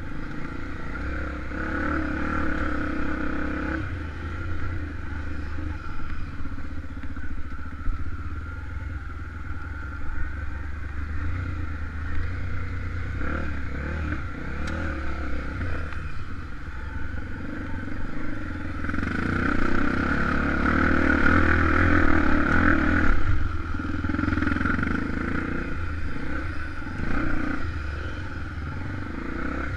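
Honda XR250 Tornado's single-cylinder four-stroke engine running under way, louder for a few seconds about two-thirds of the way through as it is given more throttle.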